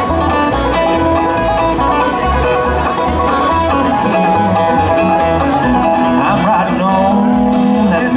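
Bluegrass band playing an instrumental break, with banjo, guitar and bass over a steady bass beat.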